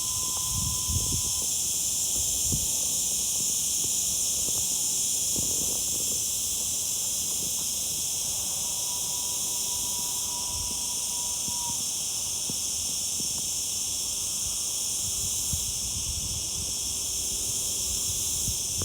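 Summer cicadas singing: a steady, unbroken high-pitched buzz that does not let up.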